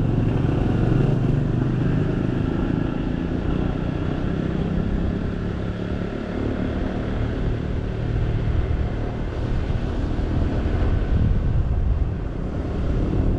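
Motorcycle engine running steadily as the bike rides along, heard from on the bike, easing off slightly about halfway and again near the end.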